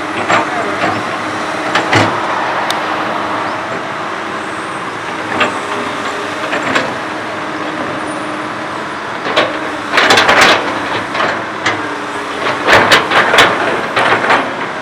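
Komatsu PC200 hydraulic excavator's diesel engine running steadily with a level hum, with sharp clanks and knocks, single ones early and dense clusters around ten seconds in and again near the end.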